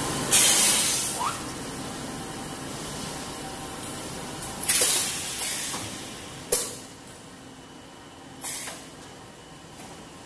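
Compressed-air hiss from a running HDPE bottle blow molding machine. The hisses come in bursts: a long one right at the start, then shorter ones about halfway and near the end, with one sharp-starting blast about six and a half seconds in, over a steady low machine hum.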